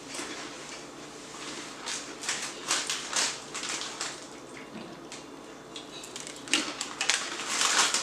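Crunchy dried snacks being chewed close to the microphone, in irregular crackly bursts that come thicker near the end.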